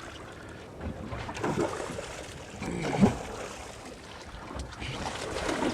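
Wind on the microphone and water washing around a small boat, with a single sudden thump about three seconds in.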